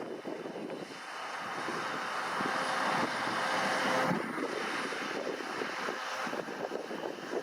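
Claas Lexion 670 combine harvester running as it harvests, growing louder over the first few seconds and falling back after the middle, with wind buffeting the microphone.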